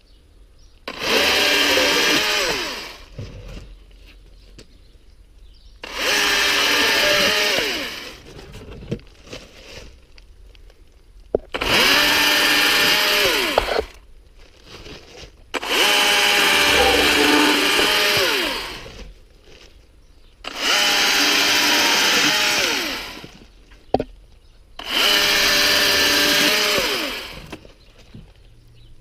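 Husqvarna 120i battery-powered chainsaw run in six bursts of about two to three seconds each, a motor-and-chain whine that drops in pitch partway through each burst as the chain cuts into a log.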